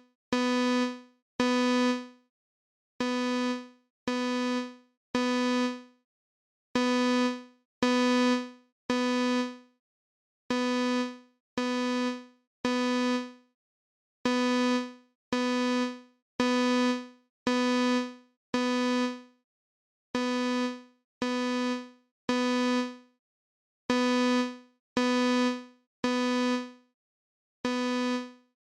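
A synthesized imitation of a Simplex fire alarm's code 3 (temporal-three) signal. One low-pitched electronic tone beeps about once a second in groups of three, with a short pause between groups, repeating evenly.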